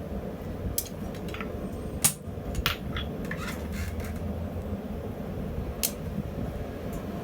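Light metallic clinks and knocks of steel pieces and tools being handled, about half a dozen spread irregularly, the loudest about two seconds in, over a steady low hum.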